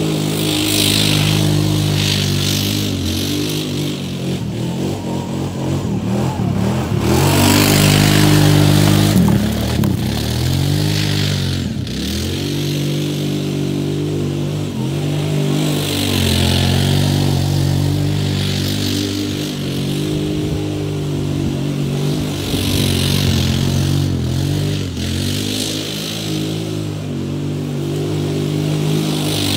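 Kawasaki Brute Force 750 ATV's V-twin engine revving, its pitch repeatedly rising and falling as the throttle is worked through donuts, with the knobby tyres spinning in mud.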